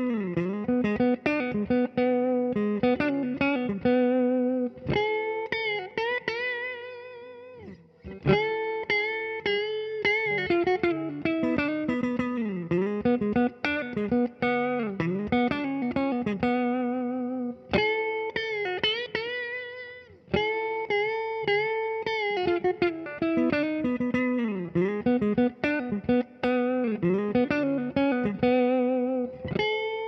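2010 Gibson SG Standard electric guitar, fitted with Halon steel and then phosphor bronze tailpieces, played clean through a Fender '80s Super Champ amp: a single-note solo with string bends and vibrato, breaking off briefly about eight seconds in.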